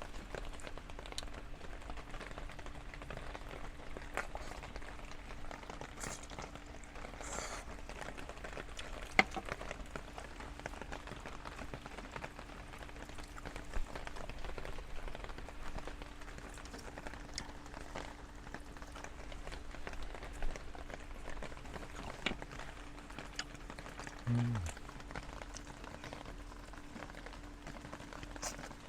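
Steady light rain falling on a tarp, with scattered sharp drop ticks and a faint steady hum underneath.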